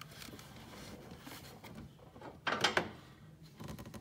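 Hand tools being handled while a short wrench is taken off a socket and swapped for a longer one, with one short sliding clatter about two and a half seconds in.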